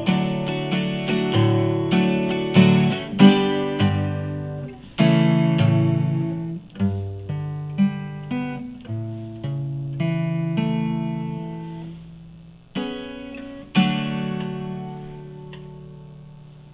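Solo guitar playing the closing instrumental bars of a song: a run of single plucked notes and chords, ending with a last chord about 14 s in that rings out and fades away.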